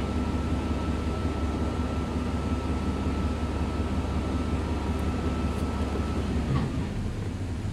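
GM pickup's engine and drivetrain running steadily with the wheels spinning off the ground, heard from inside the cab, the NP241-C transfer case engaged in four-wheel drive high. A thin steady whine runs over it and stops about six and a half seconds in, where the sound eases slightly.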